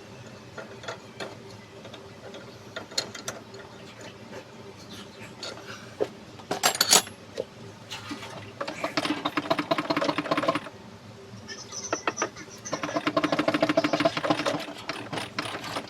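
Scattered tool clicks over a steady low hum, then two bursts of rapid mechanical rattling, about two seconds each, from hand work on a Mitsubishi 4D32 diesel fuel injector being taken apart and cleaned.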